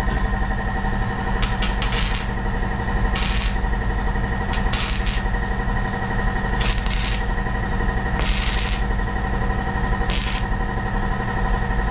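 Welding on a steel truck frame: the arc crackles steadily over a constant electrical hum, with short louder hisses coming and going every second or so.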